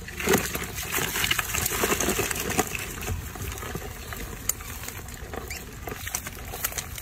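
Crayfish scrabbling and clicking against a plastic tub and a mesh trap net as the net is emptied among them. Many quick clicks and rustles, thickest in the first few seconds, then thinning out.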